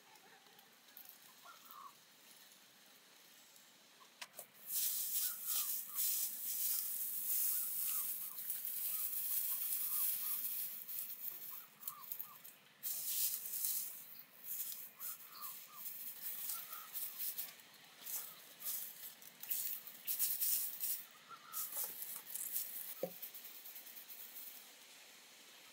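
Dry straw rustling crisply as it is handled and pressed into a woven basket, in irregular bursts that start about four seconds in and die down near the end. Short faint chirps come now and then.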